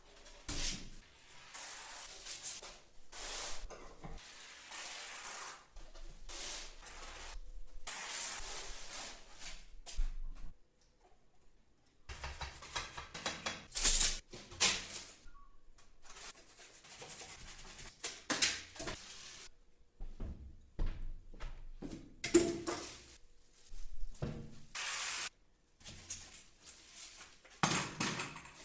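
Irregular hands-on work sounds: knocks and thunks, rubbing and scraping, and short hissing bursts, with a near-quiet pause of about two seconds partway through.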